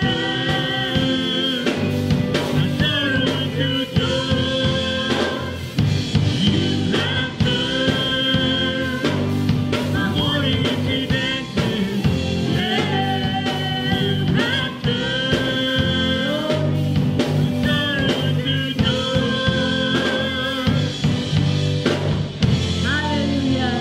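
A live worship band playing a song: several vocalists singing long, held lines over electric guitar, bass guitar, drum kit and keyboard.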